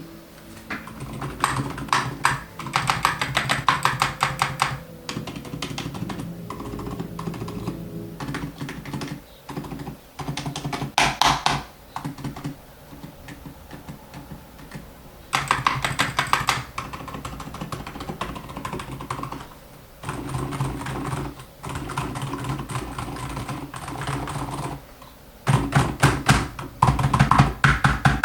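Typing on a Keychron K2 V2 mechanical keyboard fitted with Outemu Silent Lemon V3 silent switches, PBT keycaps, an aluminium case and PE foam. The keystrokes come in fast runs, with short pauses between the runs.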